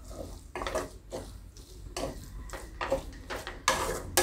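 Spatula stirring and scraping grated fresh turmeric as it roasts in ghee in a kadhai: a run of short, irregular scraping strokes against the pan.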